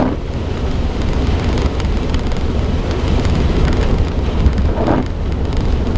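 Inside the cabin of a 2004 Suzuki Jimny creeping along a wet, rutted green lane: a steady low rumble of engine and tyres, with rain pattering on the body and windscreen. There is a brief knock a little after halfway.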